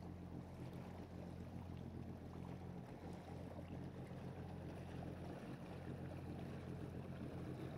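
Boat engine running steadily while under way, a low even hum with a light rushing noise over it.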